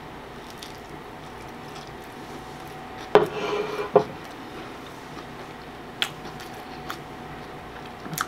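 Close-miked mouth sounds of a man chewing a soft taco, with faint scattered clicks. About three seconds in he makes a short murmur lasting under a second, and there are sharp clicks around six seconds in and near the end.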